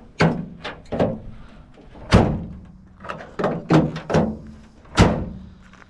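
Ford F-150 tailgate handle and latch being worked, a series of clunks and knocks with two loud thuds about two and five seconds in. The newly fitted handle is really tight to operate.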